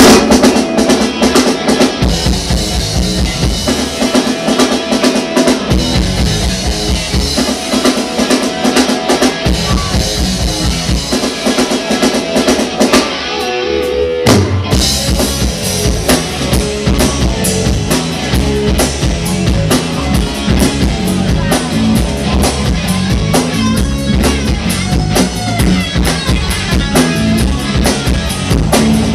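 Rock band playing, driven by a drum kit with a steady kick-drum beat alongside electric guitar and bass. About halfway through the music drops out briefly, then comes back in with the full beat.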